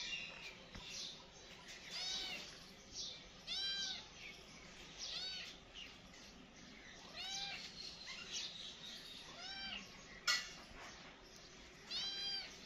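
Kitten meowing repeatedly: about seven short, high meows, each rising and falling in pitch, a second or two apart. A single sharp click comes about three-quarters of the way through.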